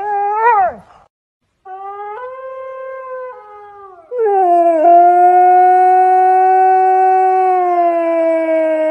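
Siberian huskies howling: a short wavering yowl, then after a brief pause a quieter howl that steps between pitches, then about four seconds in a loud long howl held at one pitch and slowly dropping.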